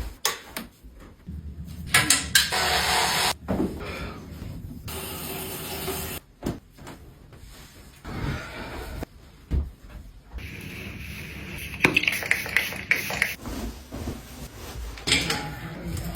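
Sounds of a fridge being deep-cleaned, edited together in short cuts: hissing and spraying, knocks, and the fridge door and shelves being handled.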